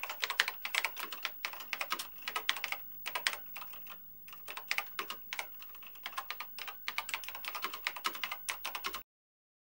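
Typing on a computer keyboard: quick, irregular key clicks with a couple of short pauses, stopping about nine seconds in.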